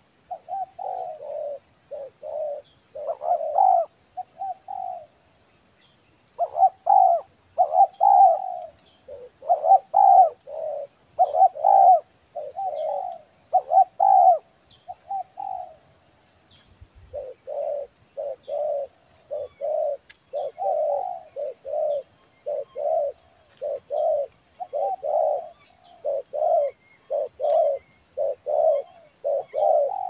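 Spotted doves cooing: a long series of short, low coo notes, about one or two a second, that breaks off briefly about five seconds in and again around the sixteen-second mark.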